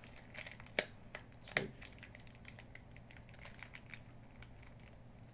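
Small clear plastic bag of blue 3045 drone propellers being handled: two sharp plastic clicks about a second in and a second and a half in, then fainter ticks and light crinkling.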